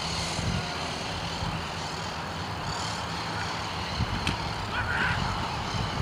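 Steady low outdoor rumble with a faint steady hum, and a brief faint distant shout about five seconds in.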